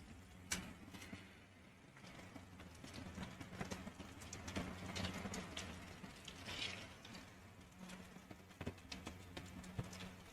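Chicken deep-frying in hot oil: a faint, continuous crackle of many small pops, with a few sharper clicks.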